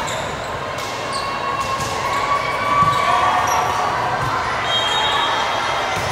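A volleyball is struck by players' hands a few times during a rally, in a large indoor sports hall, with voices in the background.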